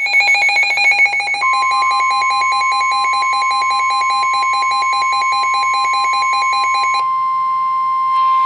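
A weather radio's alarm beeps rapidly, several pulses a second, for about seven seconds. About one and a half seconds in, the steady 1050 Hz NOAA Weather Radio warning alarm tone starts under it and carries on alone after the beeping stops, signalling an incoming Severe Thunderstorm Warning.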